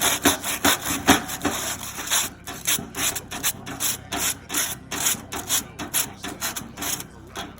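Crumpled aluminum foil scrubbed back and forth over a rusty barbecue grate, making a rasping rub about three strokes a second as it takes off the rust.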